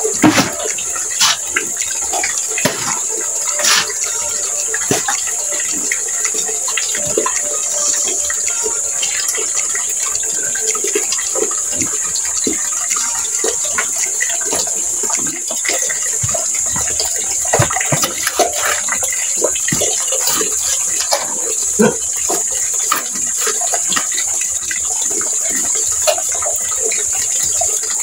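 Water running steadily from an open garden tap into a bucket, with repeated scrapes and knocks of a hoe and trowel working wet cement mortar.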